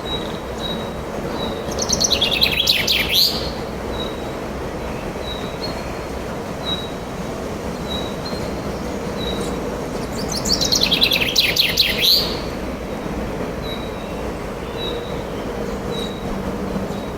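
Songbirds singing: one bird repeats a short high note about once a second, and twice a louder rapid trilling phrase drops in pitch over a second or two. Under them runs a steady rushing background of wind.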